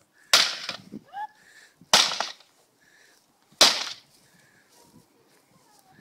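A baseball bat smashing into a Hoover vacuum cleaner three times, about a second and a half apart, each hit a loud crack followed by a short crunch of breaking plastic.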